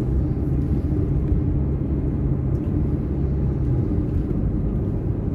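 Car driving along a road, its engine and tyre noise heard from inside the cabin as a steady, low drone with a constant hum.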